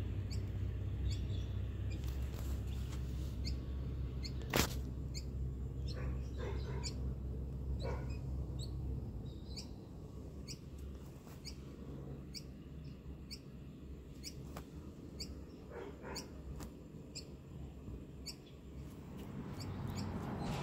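Small birds chirping with short, high chips repeated every second or so, over a low rumble during the first half. One sharp knock about four and a half seconds in.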